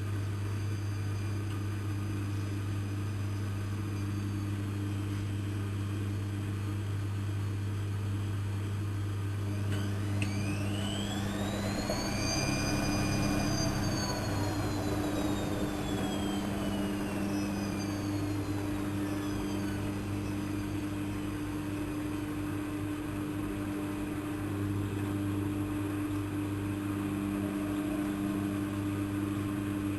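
Lloyds 825 washing machine running with a steady low motor hum; about ten seconds in, a motor whine rises quickly to a high pitch, holds briefly, then slowly falls away as the drum is driven and then coasts down.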